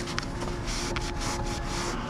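Rubbing and scraping of packaged products being handled while a vending machine is restocked, with a few short clicks, over a steady machine hum.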